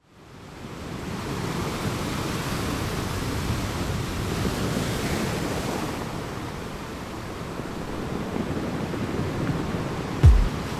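A steady rushing noise like surf, fading in from silence over the first second or so, with a single deep low thump near the end.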